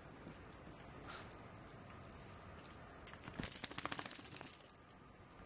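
A small dog's collar tag jingles in a quick, dense rattle for about a second and a half, starting about three and a half seconds in, as the chihuahua shakes or twists its body. Fainter clicks and taps come before it.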